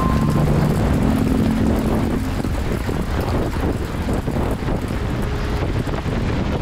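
Steady rushing noise of wind and wet road from a camera mounted outside a moving car in the rain. Low held notes of background music fade out about two seconds in.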